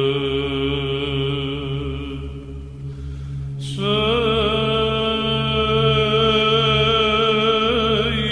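Byzantine-style chant: voices hold long, slowly shifting notes over a steady low drone. The melody fades out about two and a half seconds in, and a new phrase starts a little before four seconds.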